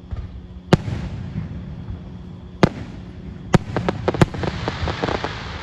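Aerial fireworks bursting at a display: sharp single bangs spaced a second or two apart, then a quick run of crackling pops about four seconds in.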